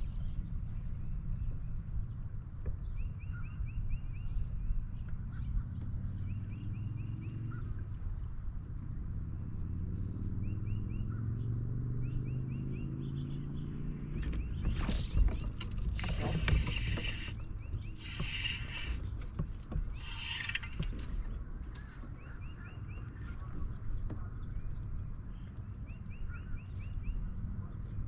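A motor running with a low hum, its pitch rising steadily for several seconds in the middle, broken by a few loud rushes of noise. Short high chirping ticks come and go throughout.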